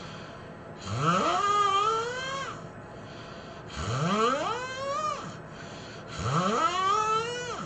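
A person snoring: three long snores, each rising steeply in pitch to a high, drawn-out tone, with quieter breaths between them.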